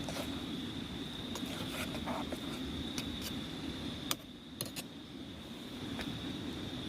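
Crickets trilling steadily over the low, even rush of a river, with scattered light clicks and taps.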